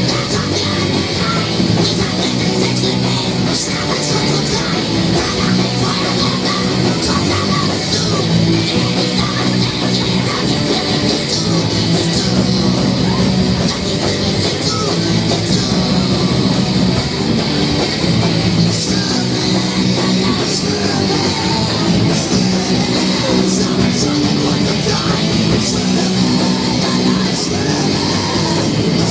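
A live punk rock band playing loud and steady, with guitars, bass notes and drums with cymbals.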